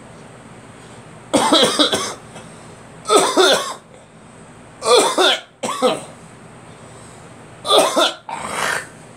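A person coughing repeatedly: six short coughs spread over several seconds, the later ones coming in close pairs.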